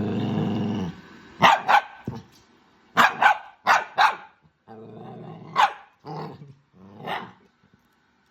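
A dog growling, then barking in short sharp barks, mostly in pairs, with low growls between the barks.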